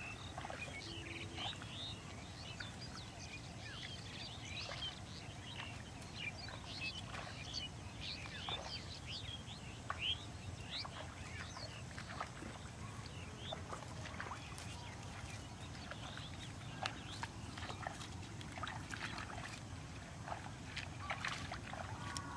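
Outdoor ambience with many short, high chirps from small birds scattered throughout, and a few faint clicks in the second half.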